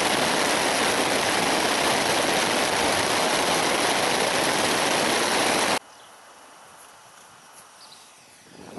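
Heavy rain falling on a tent, heard from inside: a loud, even hiss that cuts off suddenly about six seconds in, giving way to a much quieter background.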